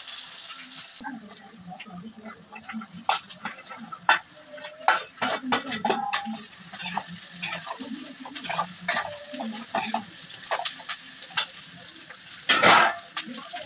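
Steel ladle stirring and scraping okra in a steel kadhai, with repeated metal clinks over a low sizzle of frying. A louder clatter comes near the end.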